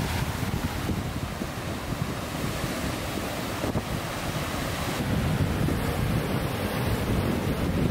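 Sea waves breaking and washing up onto a sandy beach, a steady rush of surf, with wind buffeting the microphone.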